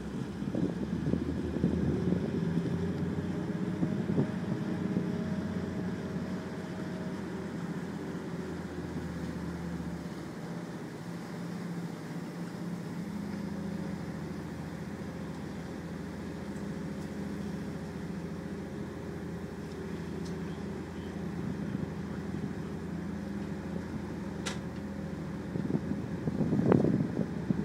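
Ferry's engine running with a steady low drone, heard from on board, with wind gusting on the microphone at the start and again near the end.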